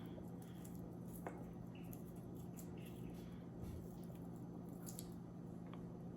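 Faint soft squishing and a few light clicks of onions being put into a pot with a seasoned roast, over a steady low hum.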